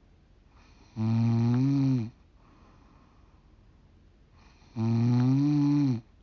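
A 45-year-old woman snoring in her sleep. Two loud snores, each about a second long, come about four seconds apart, with quiet between them.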